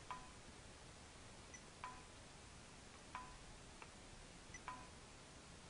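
Axicon barcode verifier giving a faint, short beep with a click as each calibration scan is taken, four times at uneven intervals of a second and a half or so, with a softer lone click between the third and fourth.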